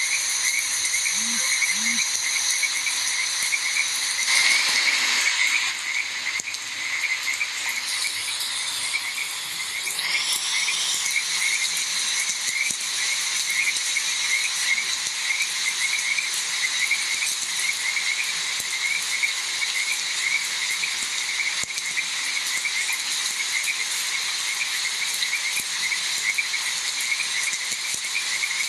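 Frog chorus croaking continuously in rapid repeated pulses, over a steady high insect drone and hiss; a brief louder rush of noise comes about four to five seconds in.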